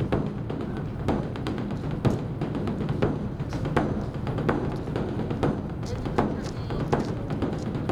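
Beopgo, the large Korean Buddhist dharma drum, beaten with two sticks in a continuous uneven run of strikes, about two to three a second, over the drum's deep ringing drone.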